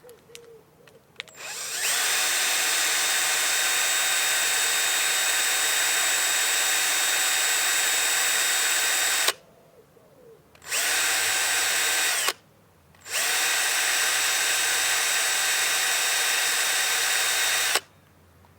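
Electric drill motor running at a steady high-pitched whine in three runs: a long one of about eight seconds, a short one of under two seconds, then one of about five seconds. Each run speeds up and stops quickly.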